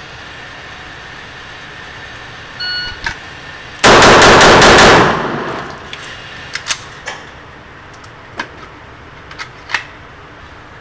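A shot timer's start beep, then a Tanfoglio Stock II pistol fired in a rapid string of about six very loud shots in just over a second, echoing in an indoor range. Afterwards, ejected brass casings clink as they land on the concrete floor.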